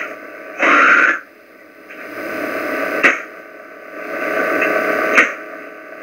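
Loud static and hum that swells and fades, broken by a few sharp clicks and a short, louder burst of noise about a second in.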